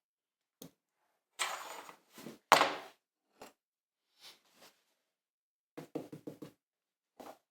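Hand-tool work on a wooden bench top. A scrape, a sharp knock (the loudest sound), scattered light clicks, then a quick run of about six light taps near the end.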